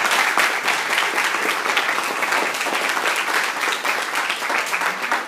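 Audience applauding, many hands clapping steadily, easing off near the end.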